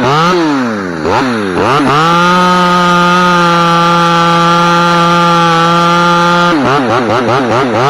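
Chainsaw blipped up and down in quick revs, then held at steady full throttle for about four seconds while cutting through a limb, then dropping back to quick revving near the end.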